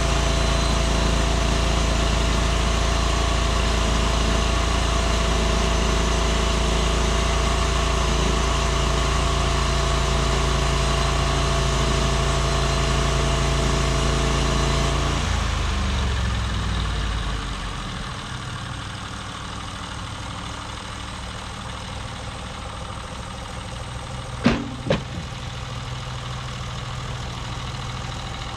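Norwood MX34 bandsaw mill's gas engine running steadily, then dropping to a lower, quieter run about halfway through. Two sharp clicks sound near the end.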